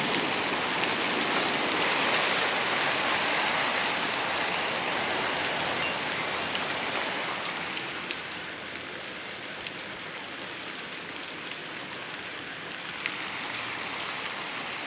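Heavy downpour: a steady hiss of rain pouring onto the ground and surfaces. It grows somewhat quieter about eight seconds in, with a couple of sharp drip taps.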